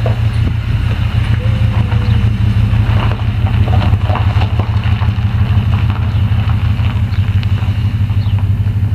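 An engine idling steadily with a deep, even hum, with a few faint knocks above it.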